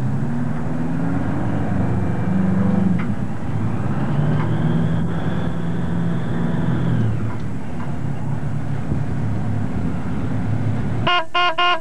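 Fishing boat's engine running, its pitch rising at the start, holding steady, then dropping about seven seconds in as the throttle is eased. Three short ringing tones near the end.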